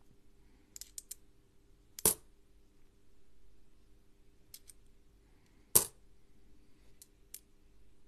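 Aluminium-bronze Australian one-dollar coins clicking against each other in small quick runs as they are fanned through in the fingers. Two louder single metallic clinks come about two seconds in and again near six seconds.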